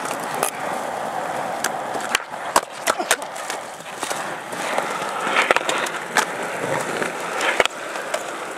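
Skateboard wheels rolling over concrete, broken by several sharp clacks of the board and trucks hitting the ground.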